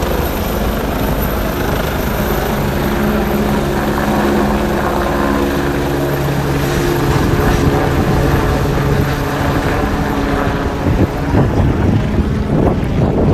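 Air ambulance helicopter running close by: a loud steady rumble with held low tones from its engine and rotor. About ten seconds in the tones fade and wind gusts buffet the microphone.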